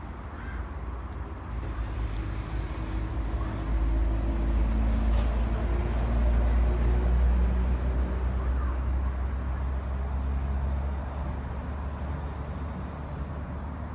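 A motor vehicle's low rumble swelling and then fading, as if passing by.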